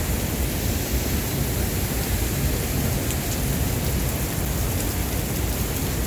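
Waterfall's falling water: a steady, unbroken rush of noise, heaviest in the low end.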